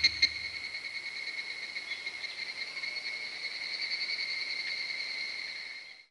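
Steady, rapidly pulsing cricket trill, fading out just before the end.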